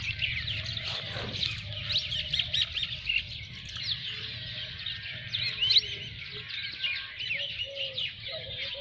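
Many small birds chirping and twittering in dense, overlapping calls, over a steady low hum.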